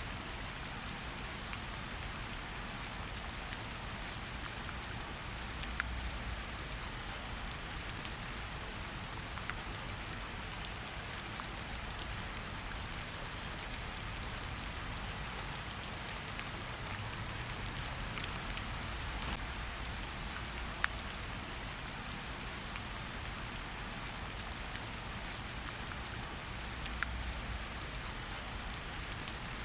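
Steady heavy rain falling, a dense hiss with individual drops clicking sharply here and there over a low rumble.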